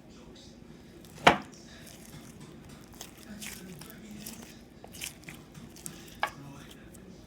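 Slime being handled and pressed, with small sticky clicks and pops and one sharp, louder click a little over a second in.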